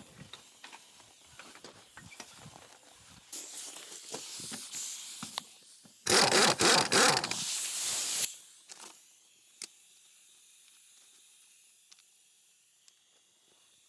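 Impact wrench taking the lug nuts off a skid-steer wheel: a hiss, then about two seconds of loud, fast rattling as a nut is spun loose.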